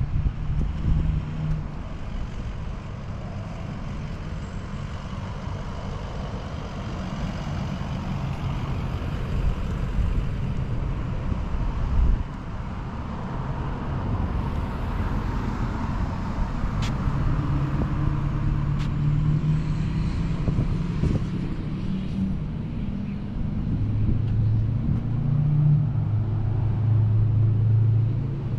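A motor running: a steady low rumble, with a low engine drone that strengthens and fades several times.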